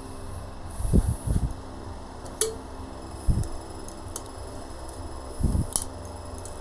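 Scattered dull knocks and a few sharp metallic clicks from fitting the seal retaining clip into a motorcycle fork tube, over a steady fan hum.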